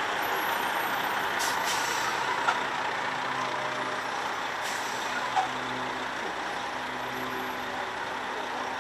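Heavy tractor-trucks towing loaded lowboy trailers rolling slowly past, their diesel engines running steadily, with short air-brake hisses about a second and a half in and again near five seconds. Two brief knocks stand out, around two and a half and five and a half seconds in.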